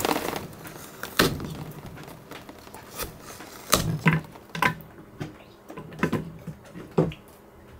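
Chunks of coconut flesh dropped by hand into an empty blender jar, landing with about ten separate, irregular clunks. Rain hiss is heard only in the first half second.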